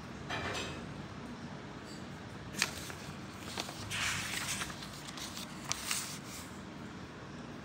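Paper rustling as a hand bends, riffles and turns the pages of a printed diary: a few short swishes and crisp snaps, the longest riffle about four seconds in.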